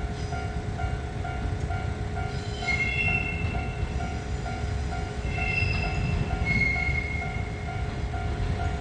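Japanese level-crossing warning bell ringing about twice a second over the low rumble of a passing KiHa 47 diesel railcar. Several brief high-pitched squeals, most likely from the train's wheels, come about three seconds in, around five and a half seconds, and again near seven seconds.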